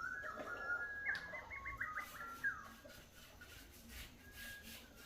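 A bird singing: clear whistled notes, then a quick run of short stepping notes about a second in that fades out after two and a half seconds. Faint repeated scratchy strokes sound underneath.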